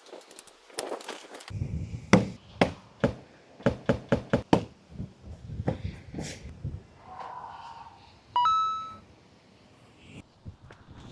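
A quick run of sharp knocks and taps, about a dozen over two or three seconds, then a softer noisy rustle and a brief ringing tone near the end.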